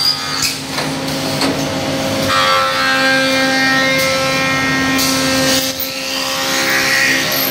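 Automatic wooden spoon-making machine running: a steady motor hum with the cutters working wood, and a few sharp clicks.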